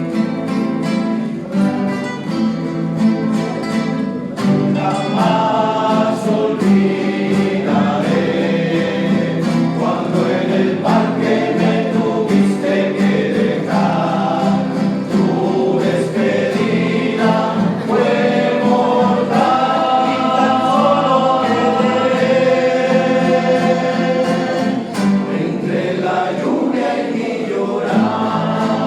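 Rondalla ensemble performing a bolero: a group of voices singing in harmony over plucked and strummed guitars.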